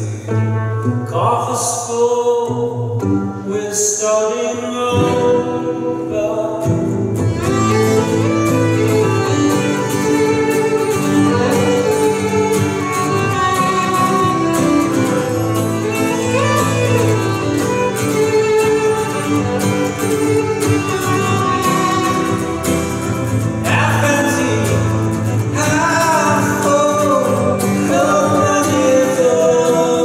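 Live acoustic duo of violin and acoustic guitar with singing. The violin is plucked at first, held like a guitar, then bowed from several seconds in, over a strummed acoustic guitar.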